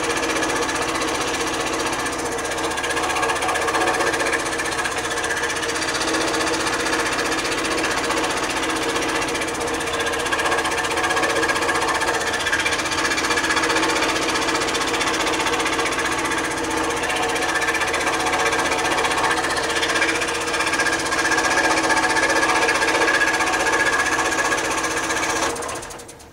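PS Wood scroll saw running at 1140 RPM, its number 5 Super Sharp blade cutting through a pine block with a steady chatter. Near the end the saw stops and the noise drops away.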